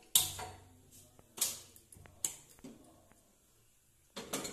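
A gas stove burner being lit, with a sharp burst as it catches that is the loudest thing heard, then a metal pot set onto the burner grate with a few short, sharp knocks.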